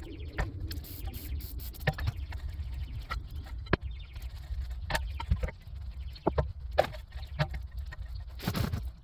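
Tools and metal brake parts being handled during a rear brake job: irregular sharp clicks and clinks over a low steady rumble, with a louder clatter near the end.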